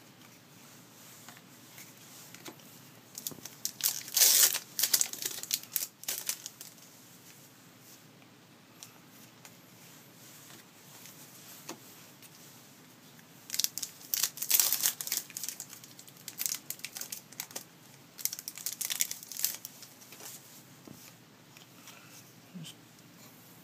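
Foil trading-card pack wrappers crinkling and tearing as packs are ripped open and handled, in three bouts of loud rustling: one a few seconds in, one past the middle and a shorter one after it. Between them there is only faint handling.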